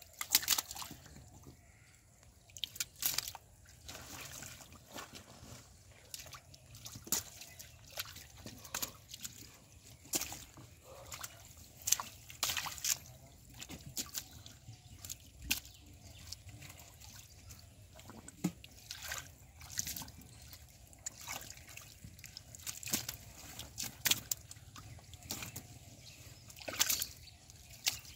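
Irregular splashes and sloshing in shallow muddy water as hands grab at fish and the fish thrash in the mud.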